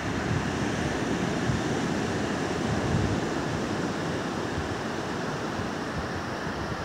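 Steady wash of surf breaking on a sand beach, with gusts of wind buffeting the microphone.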